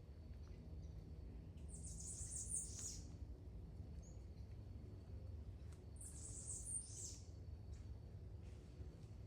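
A wild bird singing two short bursts of high-pitched notes, about four seconds apart, over a steady low rumble.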